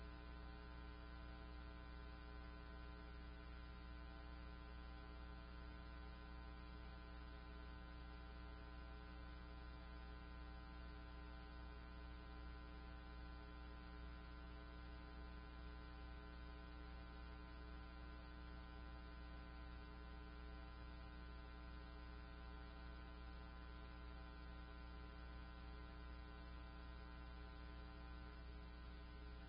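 Near silence with a faint, steady electrical hum made of many even overtones, unchanging throughout.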